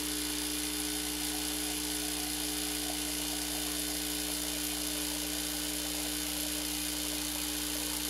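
Starbucks Barista (Saeco) espresso machine's pump buzzing steadily as it drives water out through the open steam wand into a steel pitcher. This is the priming step, which pushes air out of the pump system and fills the boiler.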